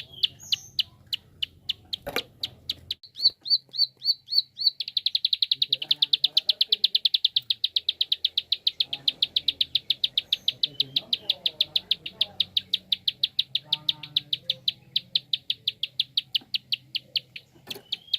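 Prinia (prenjak) giving its rapid clicking call, a string of sharp high clicks about five a second that speeds up about five seconds in into a fast, unbroken run of about ten a second. There are two sudden knocks, about two seconds in and near the end.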